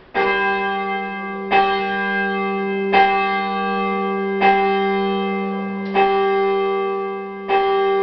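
A single heavy church bell chimed, not rung full circle, struck six times at the same pitch about every second and a half, each stroke ringing on over a steady hum. Loud inside the church.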